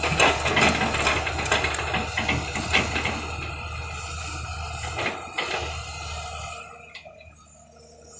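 Clattering knocks and scraping, like earth and stones being dug and dropped, over a low steady engine hum. It is busiest in the first few seconds and fades after about six seconds.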